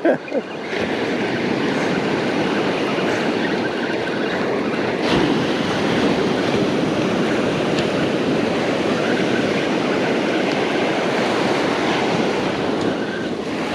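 Ocean surf washing onto the beach with wind on the microphone: a steady rushing noise, with a single brief click about five seconds in.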